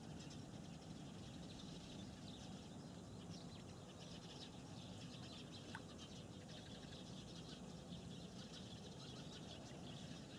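Faint evening outdoor ambience at reed-lined water: a low steady hiss with scattered soft high chirps and ticks, and one short rising note about halfway through.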